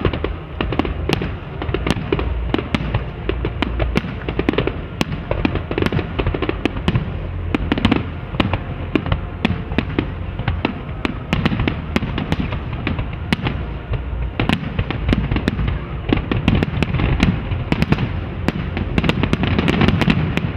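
Aerial fireworks display: shells bursting in a dense, continuous run of bangs and crackles over a low rumble.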